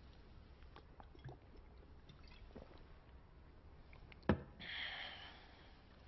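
Quiet drinking from a glass bottle: faint swallows and small clicks. About four seconds in comes a sharp click, then a second of breathy hiss.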